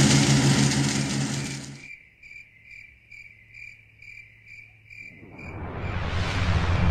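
A cricket chirping in an even, steady rhythm, a few chirps a second, in a quiet gap between stretches of farm machinery engine noise. The machinery fades out over the first two seconds and swells back in near the end, with the chirping still going under it.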